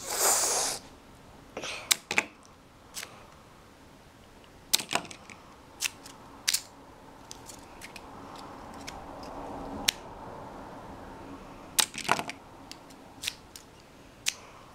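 Sharp, irregular plastic clicks and taps of Playmobil figures being handled and knocked over, with a cluster of clicks about twelve seconds in. A brief loud hiss opens it.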